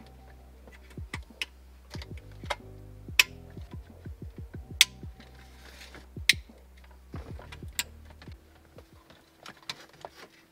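Sharp plastic clicks and snaps, about a dozen spread over eight seconds, as wiring harness connectors are pushed into the back of an aftermarket head unit and its plastic housing is handled, over background music.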